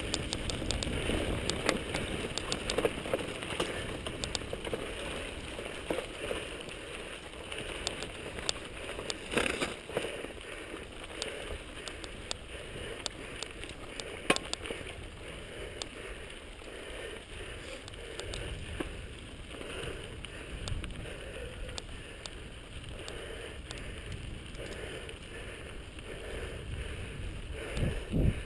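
Mountain bike rolling over a dirt trail: tyres crunching on loose dirt and gravel, with the frame, chain and parts rattling in frequent clicks and knocks over bumps. A few sharper jolts come through, and a heavy thump near the end.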